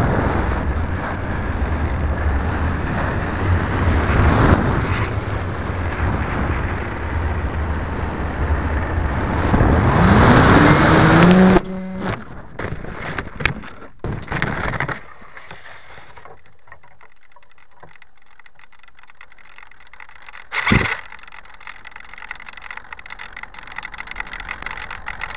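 Wind rushing over the camera on an electric RC model plane in flight, with a low rumble. About ten seconds in, the electric motor whines up in pitch, then the sound breaks off abruptly as the plane crashes into a tree, followed by several seconds of branches cracking and scraping. After that it is much quieter, with one sharp knock about twenty seconds in.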